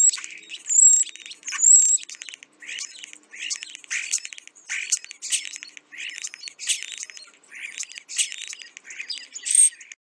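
Starling song: a busy run of chirps, squawks and clicks, with high sliding whistles three times near the start and once more near the end.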